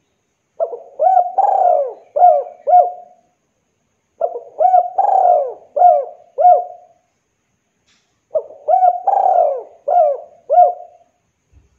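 Spotted dove (derkuku) cooing: three phrases a few seconds apart, each a quick run of five or six low coos.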